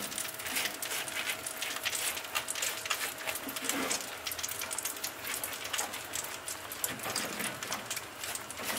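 Hot oil and fat crackling and sizzling on the skin of a roasting pork leg as it is brushed with oil. The sound is a dense run of many small pops, with a faint steady hum underneath.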